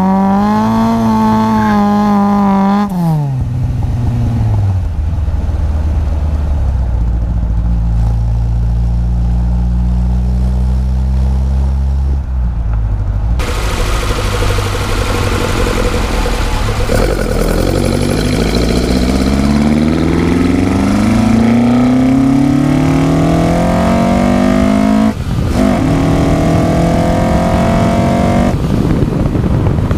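Ford Escort Mk2 RS2000's tuned four-cylinder engine with twin side-draught carburettors, driving on the road. In the first few seconds it is held at revs and then eases off, and it runs steadily at low revs for a while. After a cut about halfway through, the engine-bay sound climbs steadily in pitch under acceleration, drops suddenly at a gear change near the end, and pulls up again.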